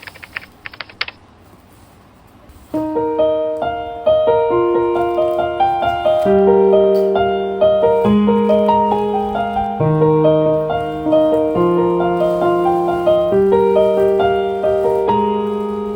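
A few sharp clicks in the first second, then gentle background piano music that starts about three seconds in and carries a simple melody over sustained chords.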